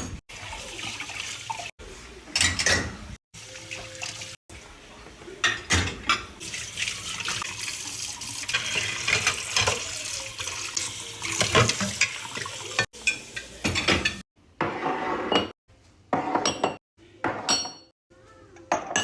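Dishes being washed at a kitchen sink: running tap water with dishes and cutlery clinking, broken by several abrupt cuts, with separate clinks of dishes near the end.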